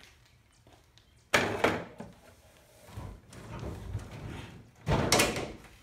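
The large plastic front screen panel of a rear projection TV knocks and rattles as it is worked loose from the cabinet. There are two loud clunks, one about a second and a half in and one near the end, with quieter rubbing and handling noise between them.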